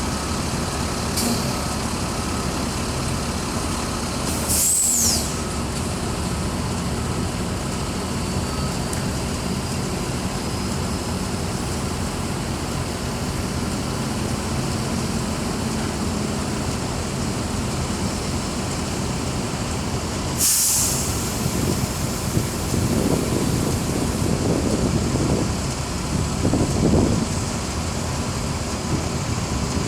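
Heavy construction machinery running with a steady drone. Short sharp hisses of released air come twice, about five and twenty seconds in, and the noise turns rougher and more uneven near the end.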